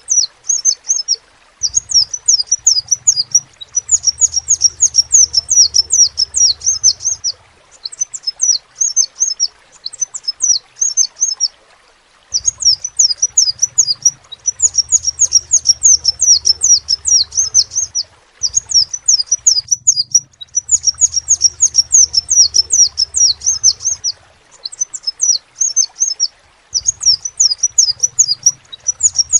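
Crimson sunbird (kolibri sepah raja) singing: fast runs of high, thin chirps, each sliding downward, in phrases of a few seconds separated by short pauses.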